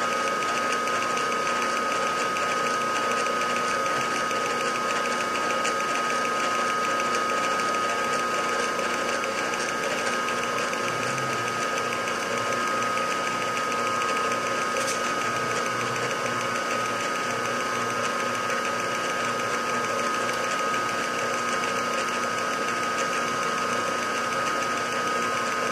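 Milling machine running steadily with a wobbler edge finder in the spindle: an even motor and drive hum with a constant high-pitched whine over it.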